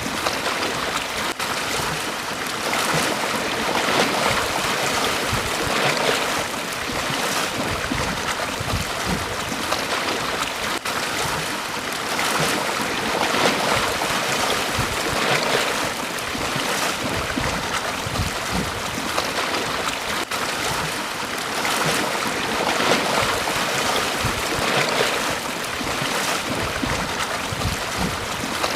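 Waves breaking and washing on a beach, a continuous rush of surf that swells and eases every few seconds.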